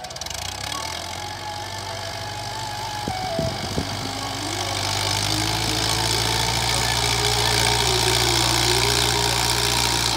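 Fiat 640 tractor's four-cylinder diesel engine running steadily under load while pushing sand with its front blade, growing louder from about halfway. A few short clicks come about three seconds in.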